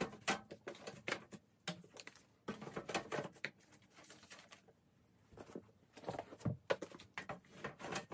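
Books being handled and slid into place on a rolling cart shelf: runs of light taps, knocks and scrapes, in clusters with quieter gaps about two seconds in and again around four to five seconds in.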